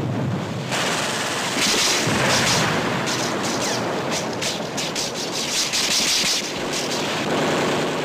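Staged battle sound effects: a dense run of gunfire with many rapid shots, mixed with shell explosions.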